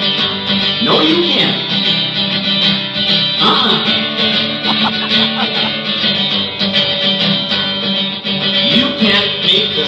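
Acoustic guitar playing a steady instrumental passage of strummed and picked chords.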